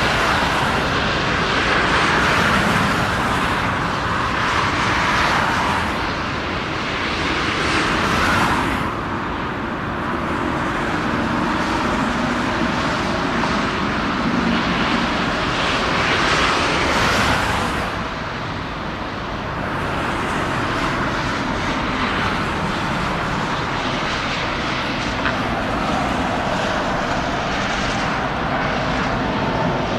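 Airplane engine noise, loud and continuous, swelling and easing several times before settling to a steadier level in the second half.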